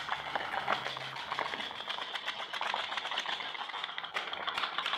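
Homemade candle-heated pop-pop steam boat running on water, its engine making a rapid, irregular ticking.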